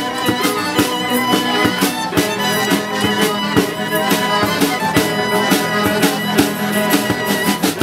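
Street band playing a tune: two violins bowing the melody over strummed acoustic guitar, with a steady beat.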